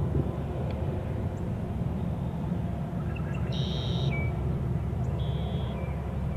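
Steady low outdoor rumble with two short, high buzzy calls, the first a little past halfway and the second about a second and a half later.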